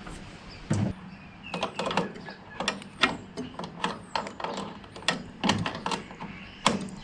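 Hand tools and metal parts clicking and knocking in an irregular series while bolts are done up, with a heavier thump just under a second in.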